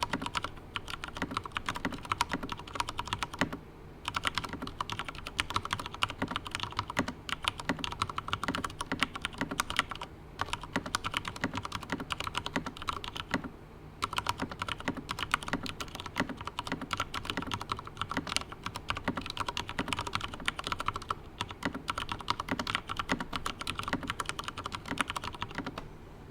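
Continuous typing on a Drop CTRL mechanical keyboard with Cherry MX Brown tactile switches lubed with Krytox 205g0: a dense stream of keystrokes, with brief pauses about four, ten and fourteen seconds in.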